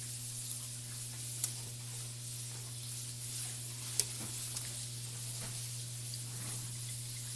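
Steady hiss over a low hum, with a few sharp clicks and a wet knock, the loudest about four seconds in, as a hand shifts the fish in the container.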